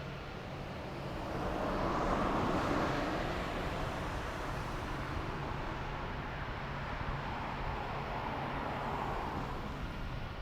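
Jet engines of a large aircraft: a steady engine noise that swells to its loudest about two to three seconds in, then settles, with a second, smaller swell near the end.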